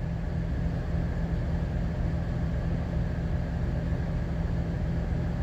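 Steady low drone of a truck's engine running, heard inside the cab.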